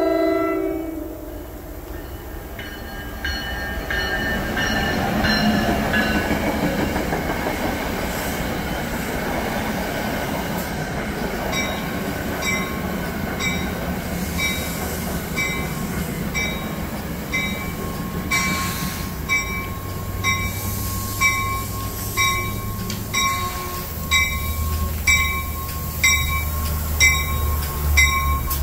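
Electric passenger train moving through the station. A slightly falling whine sounds in the first few seconds, then a steady rumble with rhythmic clicking of about one to two clicks a second. The low rumble and the clicks grow louder in the last several seconds.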